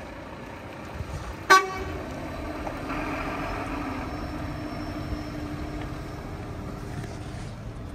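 A truck horn gives one short, loud toot about a second and a half in. Then a truck engine runs steadily as a tractor-trailer pulls away.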